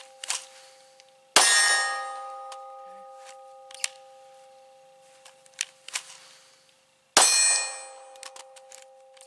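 Two pistol shots from a Glock 23 Gen4 in .40 S&W, about six seconds apart, each followed by a steel target ringing and fading over a couple of seconds. A few faint clicks fall between the shots.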